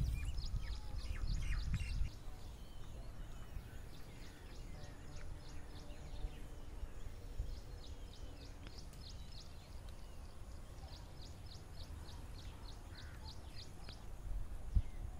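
Outdoor rural ambience: a bird calling in quick runs of short high chirps, about four a second, near the start and again in the last few seconds, over a low rumble that is strongest in the first two seconds. A single thump near the end.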